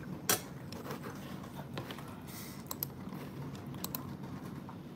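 A metal fork clicking lightly against a dinner plate a few times, the sharpest click about a third of a second in, with quiet chewing over a low steady hum.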